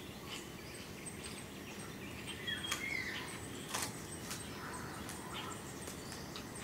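Outdoor ambience of birds chirping: short high chirps repeat throughout, with a brief warbling call about two and a half seconds in, over a steady background hiss. A few sharp clicks sound along the way.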